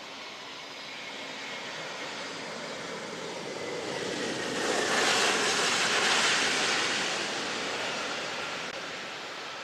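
Turbofan engines of an Airbus A320-family airliner rolling along the runway past the listener: a steady jet noise that swells to its loudest about five seconds in, with a faint whine falling in pitch as it passes, then eases off.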